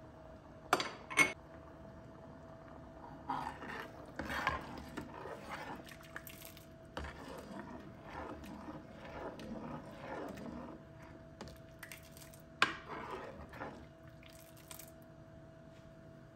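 Stainless steel ladle stirring thick lentil soup in a coated pot. It clinks sharply against the pot twice about a second in and once more about two-thirds through, with scraping and stirring sounds in between and a faint steady hum underneath.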